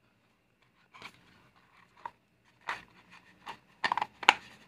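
Lamp parts and wires being handled: light rustling and scraping, then a quick run of sharp clicks and taps about four seconds in as a disc is pressed into the plastic lamp body.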